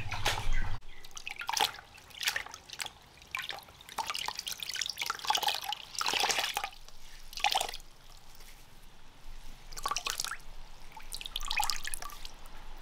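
Water splashing and dripping in irregular bursts as a cloth is rinsed to wash a person's face and hands.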